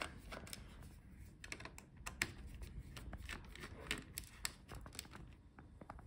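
Faint, irregular small clicks and ticks of a precision screwdriver turning out a laptop battery's retaining screws in the plastic chassis.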